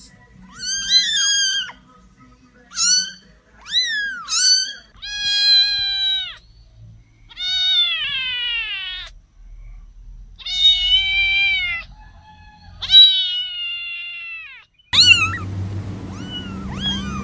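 Young kittens meowing in turn: a string of about ten high, thin meows, some short and some drawn out for more than a second. A low steady hum sits under the last couple of meows near the end.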